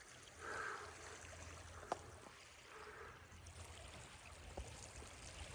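Faint lake water lapping and trickling at the shore, with one light click about two seconds in.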